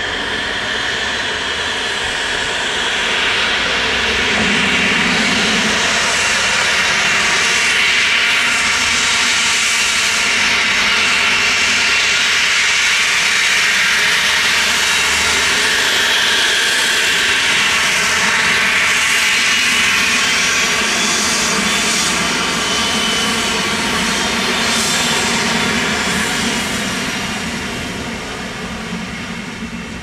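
Cessna Citation XLS+ business jet's twin Pratt & Whitney Canada PW545C turbofans running as the jet passes close by on the ground: a steady, loud, high jet whine over a rushing roar. It builds over the first few seconds, holds, and fades near the end.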